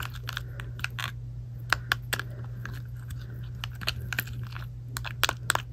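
Plastic stick poking and stirring thick shampoo slime in a small plastic tub, giving irregular sharp clicks and taps over a steady low hum.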